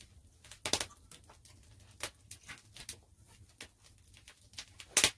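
Wood fire crackling, with irregular sharp pops; two loud pops stand out, one under a second in and one near the end.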